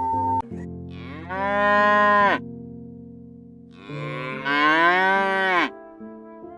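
Two long drawn-out calls from a large animal, each about a second and a half long, rising in pitch and then falling away at the end, over faint steady background tones.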